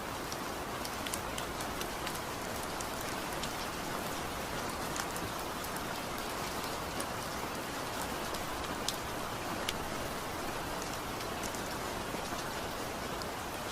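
Heavy rain drumming steadily on a tin roof: a dense, even hiss with many sharp, scattered drop ticks.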